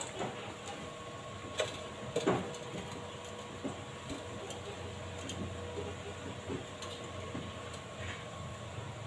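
Scattered light clicks and knocks of a steel bracket being handled and set against a steel hollow-section frame, the loudest about two and a half seconds in, over a faint steady hum.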